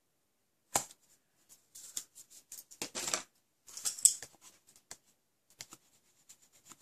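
Paper craft handling with double-sided adhesive tape: a sharp click, then several short bursts of crisp crackling and rustling as tape and card are handled.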